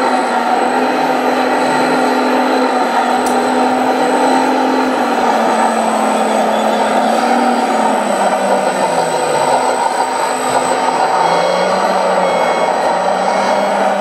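1/14-scale RC Komatsu D65PX bulldozer working soil, its sound module playing a diesel-engine sound along with the hum of its drive. The pitch sinks a little after halfway, then partly rises again near the end.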